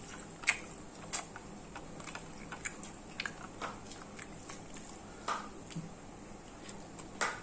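A person chewing and eating at close range, with scattered small mouth clicks and smacks, a few sharper ones near the start and near the end.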